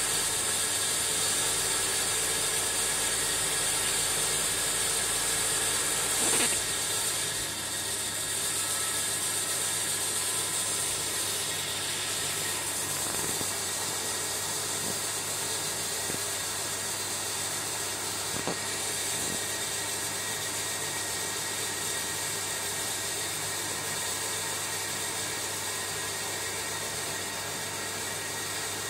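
Steady hiss with a strong high-pitched edge, with a faint click about six seconds in and another about eighteen seconds in.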